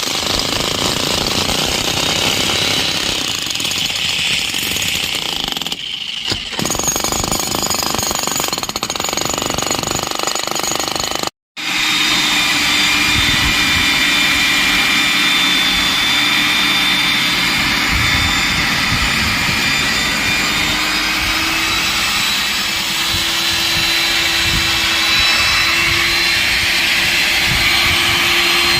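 Loud, continuous hammering of power tools working concrete, jackhammer-like, with a brief break about eleven seconds in. After the break, a machine runs steadily with a held tone that steps slightly higher later on.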